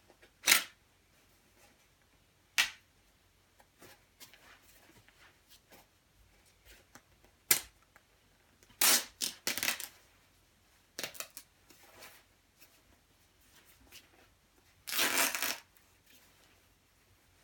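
Hands pulling at the nylon shell of a quilted winter jacket: a few single sharp snaps, short clusters of crackling rustle, and one longer noisy burst near the end.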